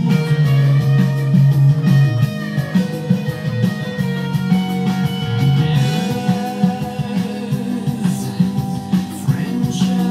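Electric guitar playing fast picked melodic lines over a rock band recording.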